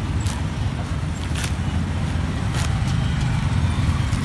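Steady low rumble of road traffic, with about four sharp chops of a blade into young coconut husk, roughly a second apart.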